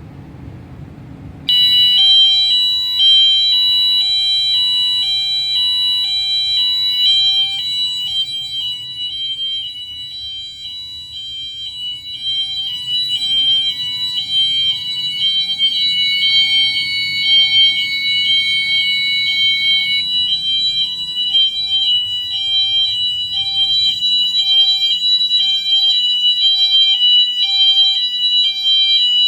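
Several Wheelock MT fire alarm horns sounding together on the hi-lo tone, each alternating between two pitches, starting suddenly about a second and a half in. One of the tones drops out about two-thirds of the way through while the rest keep sounding.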